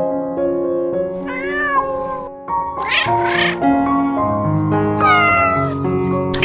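A cat meowing three times, short bending calls about a second and a half apart, over background music of steady held notes.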